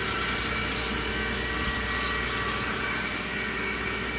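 CNC machining centre running, a steady mechanical drone with several high whining tones, as an end mill machines holes in a BMW crown wheel.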